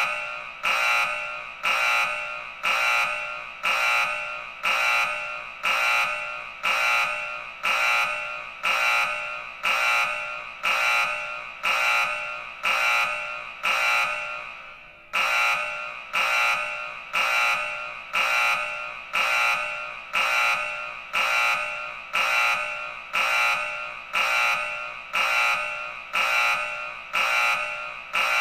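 Electronic alarm tone of a mock Emergency Alert System warning, pulsing about three times every two seconds. Each pulse starts sharply and fades, and there is one slightly longer break about halfway.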